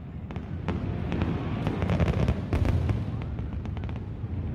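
Aerial fireworks display: many sharp bangs and crackles in irregular quick succession over a continuous low rumble of booms.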